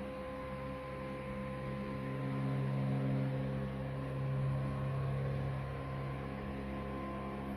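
Background music of soft, sustained tones, with held notes that shift slowly, like a gentle chord change.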